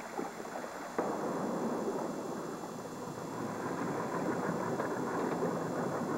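Boat engine running steadily, starting abruptly about a second in.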